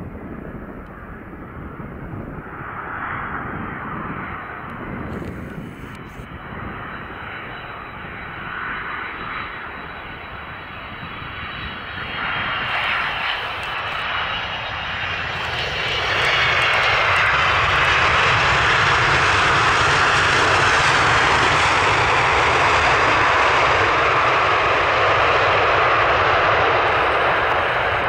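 Boeing 767-300ER's twin jet engines on landing: a jet rumble that grows as the airliner comes in and touches down, then, from a little past halfway, a much louder, steady roar as the engines go into reverse thrust after touchdown.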